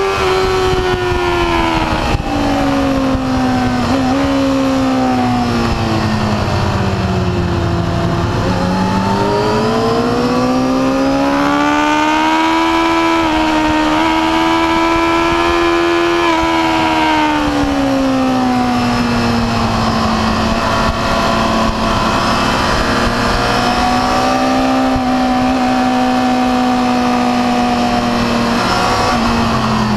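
Yamaha R6's inline-four engine racing hard, heard from on board with wind rush. The engine note sinks over the first eight seconds, with brief dips early on, then climbs again. It falls after about seventeen seconds and holds steady through a long bend.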